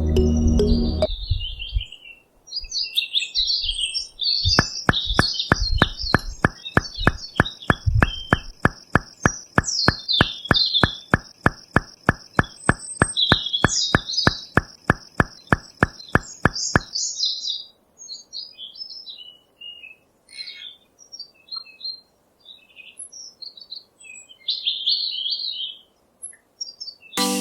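Small birds chirping and twittering. For about twelve seconds in the middle a steady, regular clicking runs under them, about three or four clicks a second, with a thin high steady tone.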